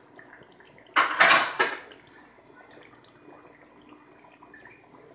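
A brief clatter of a utensil against the steel karahi about a second in, lasting under a second. Around it, beef pieces in oil and masala cook in the pan with a faint crackle.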